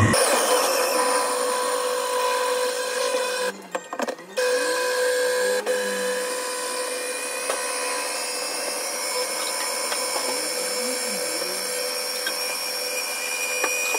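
Small electric food chopper's motor running with a steady high whine as its blade blends a thick mix of banana, peanut butter and Greek yogurt. It stops and restarts a few times in quick succession about three and a half to four and a half seconds in, then runs on.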